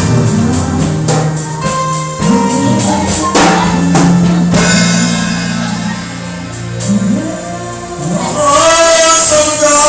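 Gospel worship music: a choir singing over a band with a tambourine keeping the beat, and a new held melody line coming in near the end.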